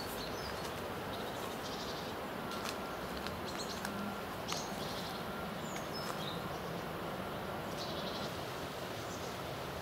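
Steady outdoor background hiss with small bird chirps and tweets scattered through it, and a faint click about four and a half seconds in.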